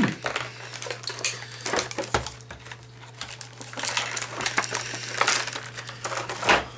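Clear plastic action-figure packaging being handled: irregular crinkling, rattling and sharp clicks of the hard plastic tray, over a steady low hum.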